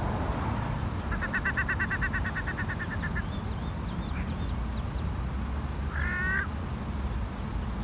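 Australian wood ducks calling: a rapid chattering run of notes lasting about two seconds, then a single call rising in pitch near the end, with a few faint high peeps from the ducklings. A steady low rumble lies underneath.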